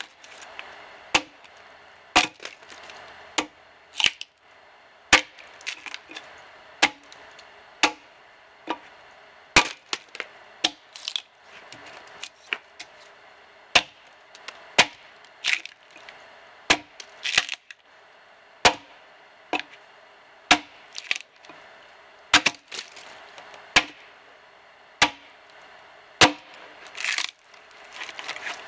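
Steel axe chopping into the side of a dead ash log while hewing it, about one blow a second: sharp knocks of the bit striking dry hardwood, a few followed by a brief crackle as chips split away.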